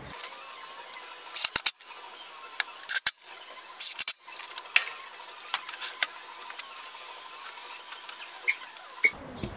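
A scattered series of sharp clicks and knocks from hand assembly work: wooden strips set down on plywood and one-handed bar clamps squeezed tight.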